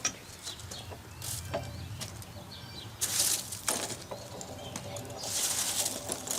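Rustling and scraping handling noises with a few light clicks, and two louder rustling bursts, about three seconds in and again near the end.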